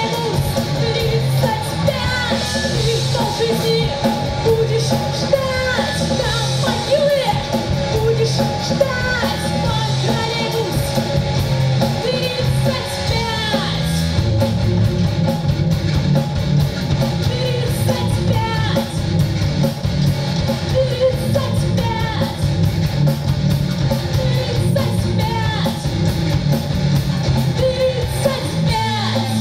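Live rock band playing a song: a woman singing lead over electric guitars and a drum kit.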